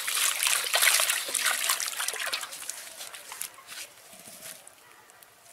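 Water trickling and splattering as it drains through a wet mesh fish net full of freshly caught fish and weeds, with many small wet clicks. It fades away after about three seconds.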